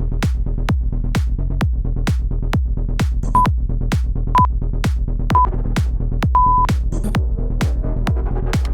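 Electronic dance music with a steady four-on-the-floor kick drum at about two beats a second. Over it, three short beeps a second apart and then a longer beep, the countdown of a workout interval timer marking the change to the next exercise.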